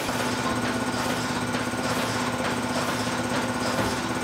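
Centrifuge spinning a batch of oiled screws to throw off the oil: a steady motor hum over a dense, fast rattle. The hum starts right at the beginning.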